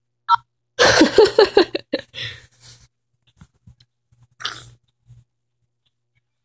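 A person bursting into stifled laughter: about a second of quick pulsed laughs, trailing into fainter breaths, with one more short burst about four and a half seconds in.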